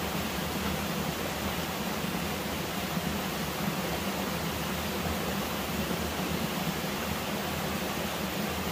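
Steady, unchanging rushing noise with no distinct events standing out.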